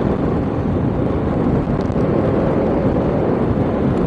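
Motorcycle ride at speed: steady wind rushing over the microphone, mixed with the bike's engine and road noise.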